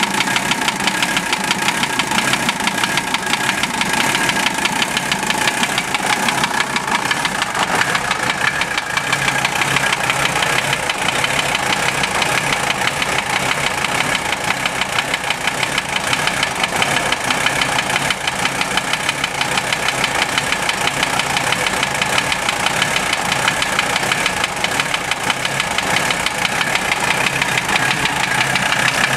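Mercedes-Benz OM617 five-cylinder diesel idling warm, with a steady, rapid knock that keeps time with engine speed. The knock is unchanged by valve adjustment or cracking the injectors, and the owner suspects the piston and connecting rod area, most likely a bad wrist pin.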